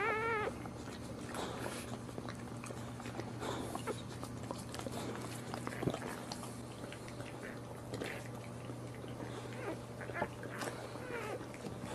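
Newborn boxer puppy giving a high, wavering squeal that stops about half a second in, followed by soft scattered licking noises and a few faint puppy squeaks as the mother licks the litter.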